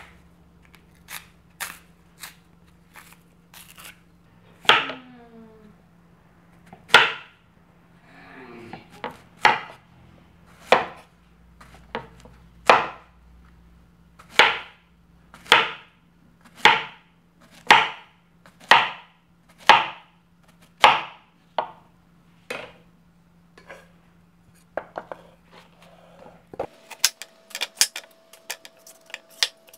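Meat cleaver chopping peeled green plantain into thick rounds on a wooden cutting board: about a dozen sharp knocks of the blade on the board, roughly one a second, with lighter clicks before them and a quick run of light ticks near the end.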